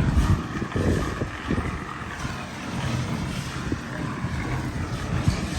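Wind buffeting the microphone: a low, uneven rumble with a few faint knocks.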